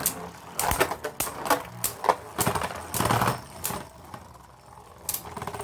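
Two Beyblade Burst spinning tops, Brave Valkyrie and Lucifer the End, clashing in a stadium battle: a run of sharp, irregular plastic-and-metal clacks, with a quieter lull about four seconds in before one more hit.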